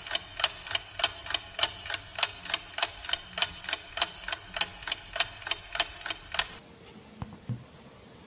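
Ticking clock sound effect, steady at about two to three ticks a second, that stops abruptly about six and a half seconds in. A couple of faint soft knocks follow.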